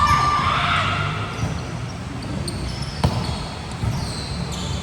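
Sneakers squeaking on a hard court floor during a volleyball game, with voices calling out in the first second. There is a sharp ball impact about three seconds in and a lighter one near four seconds.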